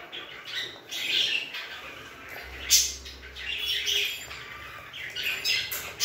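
Birds chirping and squawking in the background, with a few sharp clicks of small plastic toy dishes being handled.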